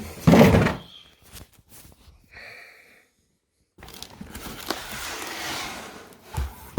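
Cardboard boxes being handled and opened: a thump, scattered knocks and a short squeak, then a couple of seconds of rustling and sliding of cardboard.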